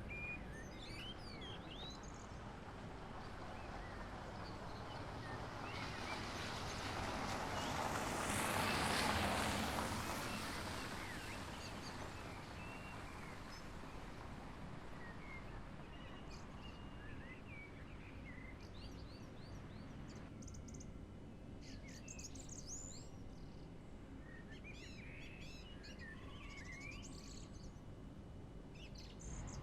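Outdoor ambience with small birds chirping in short calls, busiest in the second half. About a third of the way in, a rushing noise swells up and fades away.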